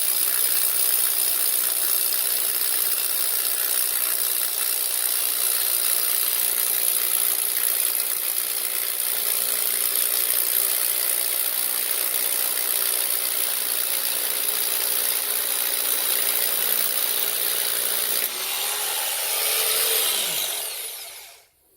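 Power drill boring into a concrete floor, running steadily. About eighteen seconds in the sound changes, then the drill winds down and stops just before the end.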